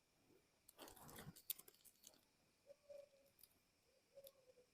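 Near silence with faint crinkling and clicking of instant-noodle seasoning sachets being handled, mostly about a second in.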